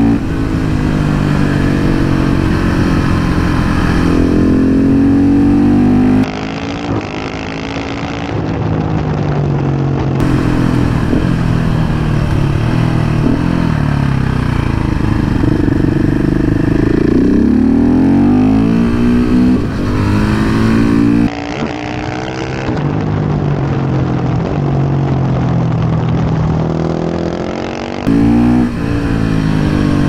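KTM 690 SMC R's single-cylinder four-stroke engine under way, pitch climbing as it pulls through the revs and falling away when the throttle is shut. The sound drops suddenly about six seconds in, again past twenty seconds and near the end, as the throttle closes.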